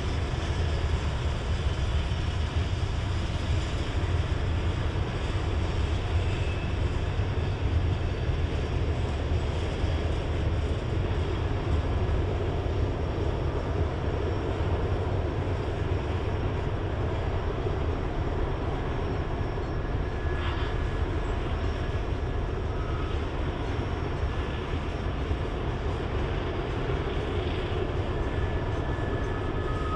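Loaded coal train's hopper cars rolling past close by, a steady low rumble of steel wheels on rail, with the drone of diesel locomotives working upgrade beneath it. Short high squeals and a single clank come through now and then in the second half.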